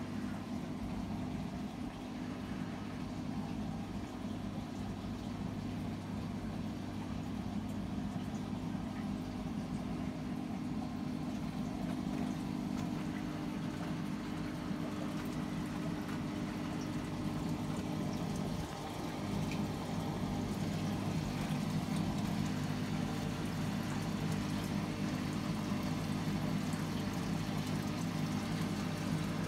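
Aquarium filter pump humming steadily, with the wash of water moving through the tank; it dips briefly and then runs a little louder about two-thirds of the way through.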